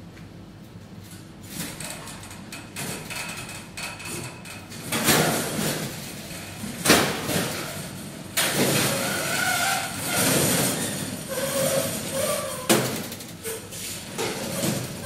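A wheeled stainless-steel rack stacked with plastic mouse cages being pulled out of an autoclave: wheels rolling, cages rattling, a few brief squeaks, and several sharp metal clanks and bangs.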